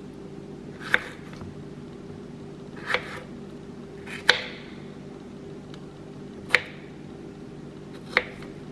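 Small kitchen knife slicing through strawberries and tapping down on a wooden cutting board: five sharp taps a second or two apart, over a steady low hum.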